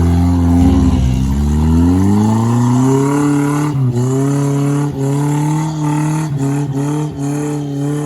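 Suzuki Jimny 4x4's engine revved hard at full throttle to pull out of a spot where it nearly got stuck. The revs climb over the first few seconds, then stay high with several brief dips.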